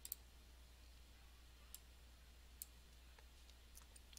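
Near-silent room tone with a few faint, scattered computer-mouse clicks.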